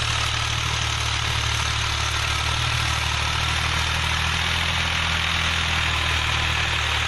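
Farm tractor engine running at a steady speed: a low, even hum with a hiss above it.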